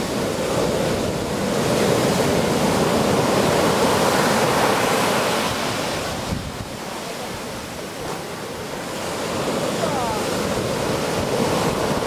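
Sea surf breaking and washing up a sandy beach: a continuous rushing that swells, eases off around the middle, then builds again near the end as the next waves come in.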